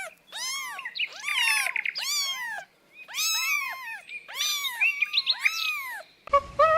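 Kittens meowing: a run of short, high-pitched mews, each rising and then falling, some overlapping, about two a second with brief pauses between groups.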